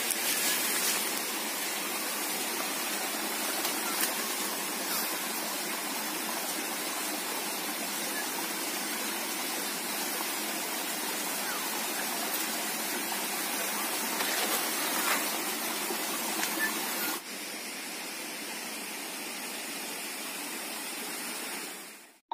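Steady rushing of a flowing forest stream. About 17 s in it drops to a quieter hiss, then fades out at the very end.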